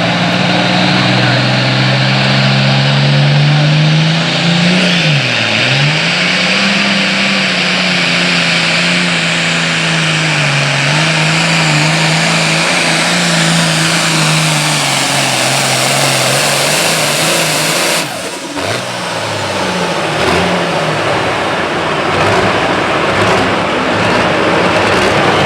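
Diesel engine of a Super Farm pulling tractor running at full throttle under load down the track, its pitch wavering and dipping briefly about five seconds in. About eighteen seconds in the throttle is cut and the engine note drops, then carries on at a lower pitch.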